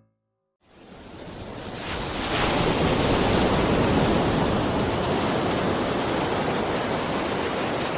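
Ocean surf on a beach, a steady rush of breaking waves. It fades in from silence about half a second in and holds at full level from about two seconds on.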